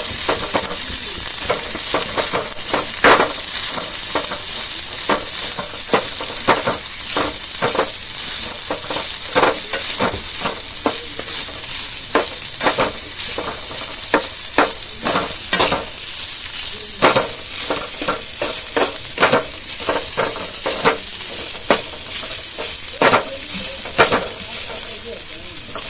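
Metal spatula stirring and scraping flattened rice (poha) in a metal kadai, with repeated scrapes and taps against the pan every second or so over a steady sizzle of frying oil.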